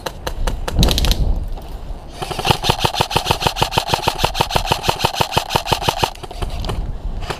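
Airsoft rifle firing a long full-auto burst, about a dozen shots a second, over the whine of its electric gearbox cycling. The burst starts about two seconds in and lasts about four seconds.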